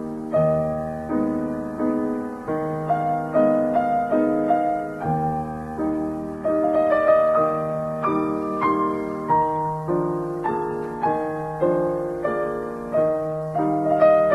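Background piano music: single notes and chords struck at an even, unhurried pace, each dying away before the next.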